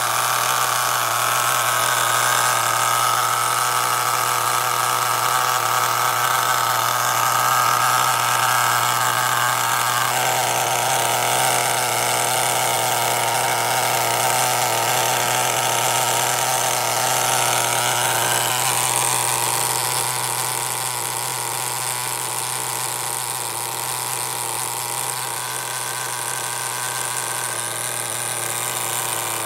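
Small nitro glow engine of an HPI Firestorm 10T RC truck running with a high, steady buzz. Its pitch drops about a third of the way in and shifts again about two-thirds in, after which it runs a little quieter.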